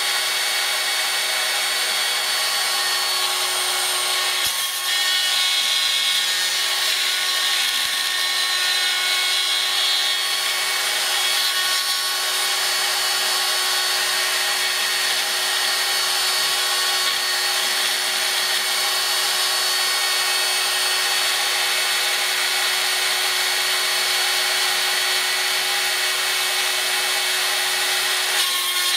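Small Proxxon mains-powered rotary drill spinning at high speed, about 20,000 RPM, as the spindle of a pantograph engraver, with a steady high-pitched whine. Its 0.8 mm cutter is milling holes in a model locomotive chassis.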